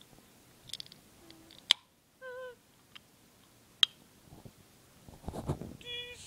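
Two sharp clicks about two seconds apart from a finger working the pull tab of an opened aluminium soda can. Between them comes a short wavering tone, and another brief tone sounds near the end.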